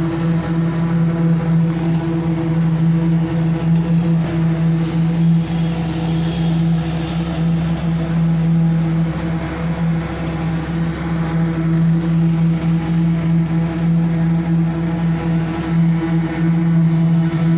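Diesel engines of heavy road-paving machinery running steadily, a constant drone with a strong, unchanging low hum.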